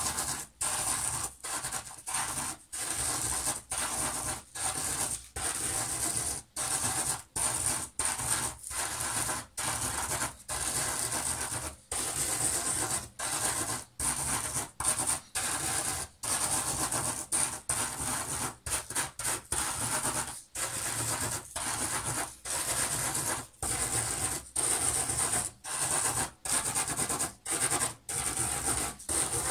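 A stick of coloured chalk being rubbed hard into a mound of salt on a sheet of paper, grinding the grains in a grainy rasp. It goes in quick repeated strokes with short breaks between them, the chalk wearing down to tint the salt.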